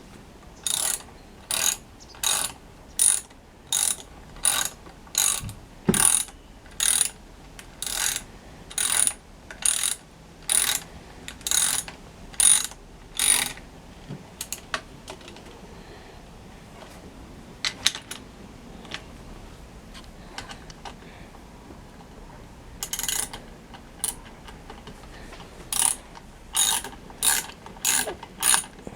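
Hand ratchet wrench clicking in even back-and-forth strokes, about one a second, as fasteners are tightened. It stops for about ten seconds in the middle, then starts again near the end.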